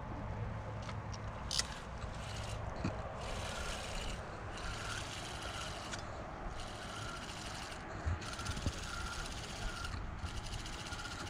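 Spinning reel being cranked in stretches of a second or two, its whirr stopping and starting as line is wound in, with a sharp click about a second and a half in.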